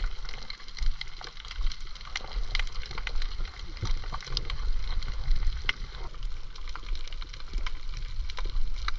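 Water sloshing and splashing, with many irregular sharp clicks and ticks over a steady low rumble.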